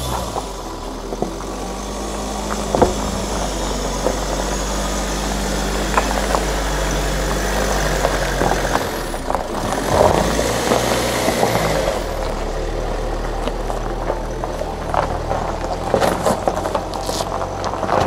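SsangYong Rexton Sports Khan pickup's diesel engine running at low revs in four-wheel-drive high as it creeps up a rough stony track, with scattered knocks and clicks over the steady engine sound.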